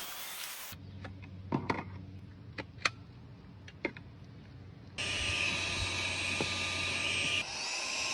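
Cordless stick vacuum: a few sharp clicks and knocks over a low hum, then about five seconds in the motor running loud and steady with a hissing whine, its pitch shifting and rising near the end.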